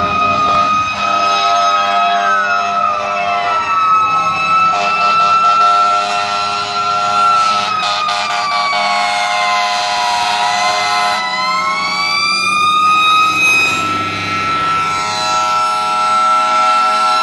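Fire truck sirens approaching: one siren holds a steady high tone while a second slowly falls in pitch and then winds back up about eleven seconds in. Long blasts of a lower air horn sound over them.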